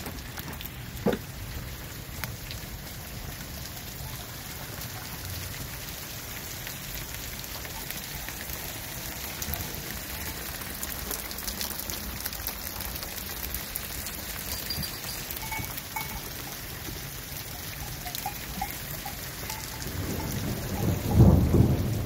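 Steady rain pouring down in a storm, with a loud low rumble of thunder building near the end.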